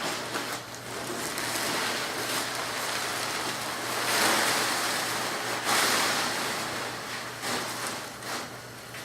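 A fabric car cover rustling and swishing as it is pulled off and gathered up, with two louder swishes about four and six seconds in.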